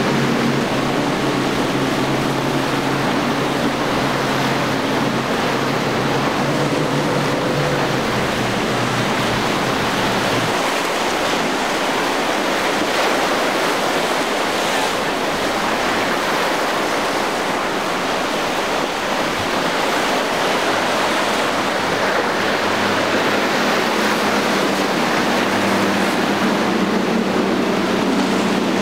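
Steady rush of surf and wind at an inlet, with the low drone of motorboat engines that cuts out about ten seconds in, and a low engine hum coming back in near the end.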